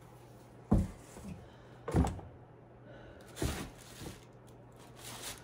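Handling noise as shoes are set down and the next pair taken from the box: two dull thumps a little over a second apart, then two rustling scrapes.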